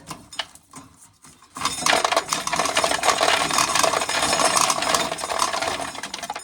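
Corn sheller stripping an ear of corn, the kernels rattling and clattering as they shower out; a few clicks, then a dense rattle starts about a second and a half in and stops suddenly at the end.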